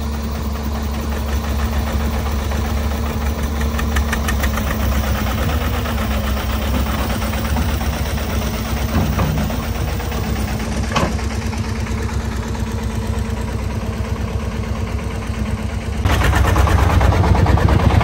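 Diesel engines running with a steady rhythmic chug: a công nông three-wheeled truck's engine running while a Kobelko SK350 excavator digs and loads dirt into its bed. About 16 seconds in, the engine sound jumps louder and closer.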